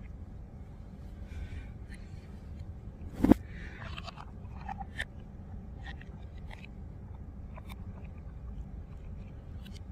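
A single sharp knock about three seconds in, then soft scattered clicks and swallows as cola is drunk from a glass mug, over a low steady hum.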